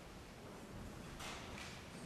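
Faint room noise from a seated audience in a hall, with a few soft knocks about a second in.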